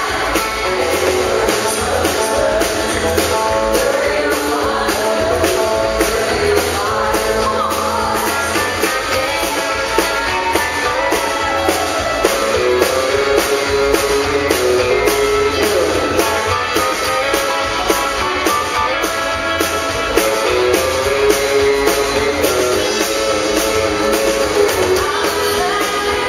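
Live country band playing: electric guitar, acoustic guitar, fiddle, bass guitar and drums, with a woman singing. The fiddle comes to the fore with sliding lines midway.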